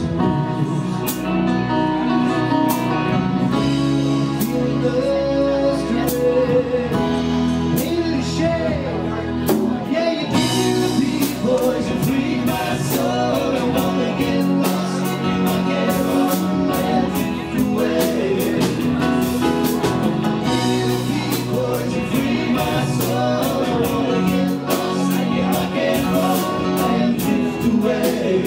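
Live band playing a steady-tempo rock song on electric bass, electric guitar, keyboard and hand percussion, with male vocals.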